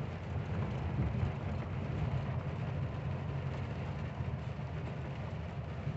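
Steady low drone of a truck's engine and road noise heard inside the cab while driving on a wet road.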